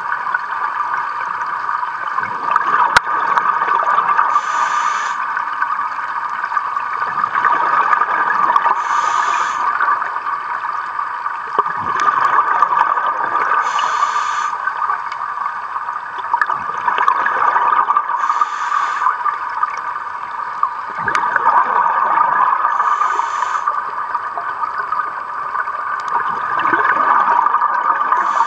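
Scuba regulator breathing heard underwater: a short hiss of inhalation about every four and a half seconds, with the bubbling gurgle of exhaled air in between.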